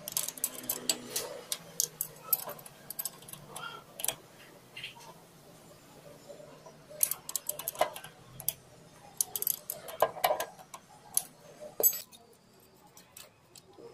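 Small metal hand tools clicking and tapping on a motorcycle's valve gear: a ring spanner working the tappet locknut and an adjusting tool on the adjuster screw. The sharp clicks come in irregular clusters, densest near the start and from about seven seconds on.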